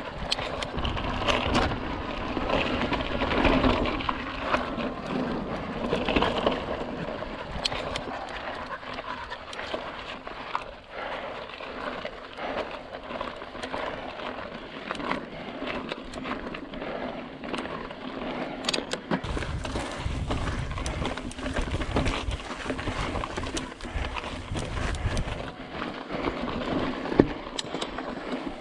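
Mountain bike riding over sandstone slickrock: tyres rolling on rock, with scattered clicks and rattles from the bike. Wind rumbles on the microphone from about two-thirds of the way through.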